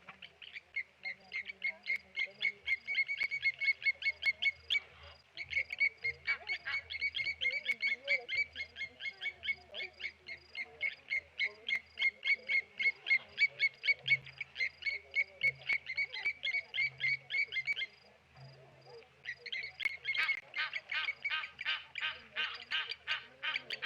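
Blacksmith lapwings giving their rapid, metallic 'tink-tink-tink' alarm calls at about four or five a second, the mobbing call they use against a raptor. The calling breaks off for a moment about three-quarters of the way through, then resumes louder.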